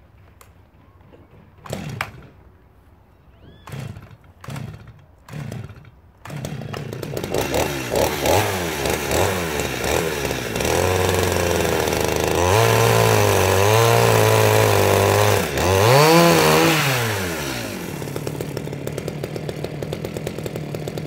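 Two-stroke chainsaw being pull-started: four short pulls on the starter cord, then the engine catches about six seconds in. It revs unevenly, is held at high revs, revs up and down once more, and settles to a steady idle near the end.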